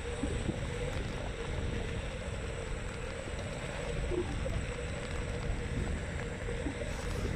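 Xiaomi M365 electric scooter riding along: a steady rumble of road and wind noise with a faint steady hum.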